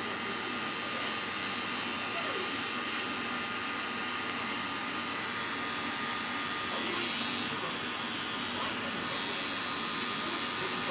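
Supreme cordless hair trimmer running steadily while cutting around the back of the ears: a quiet, even motor hum with a thin high whine.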